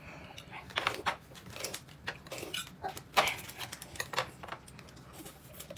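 Someone eating at a table: irregular chewing clicks and crunches with light knocks of tableware, the sharpest about three seconds in.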